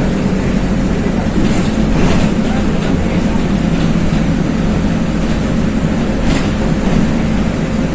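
Inside a LiAZ 5292.21 low-floor city bus under way: the steady drone of its diesel engine mixed with road and tyre noise, with a constant low hum.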